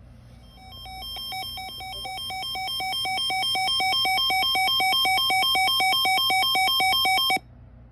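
Electronic emergency alert tone that warbles between two pitches about four or five times a second. It swells in over the first few seconds, holds, then cuts off abruptly, signalling that a new severe weather warning is about to be broadcast.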